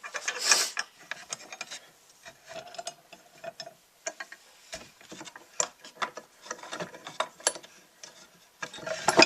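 Irregular light clicks, knocks and scrapes of wooden parts and tools being handled on a workbench, with a louder scrape about half a second in.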